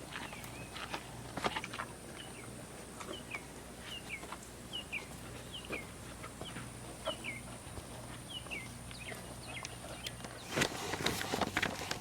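A chick peeping over and over, short falling peeps about two a second, with scattered light knocks and a burst of loud rustling handling noise near the end.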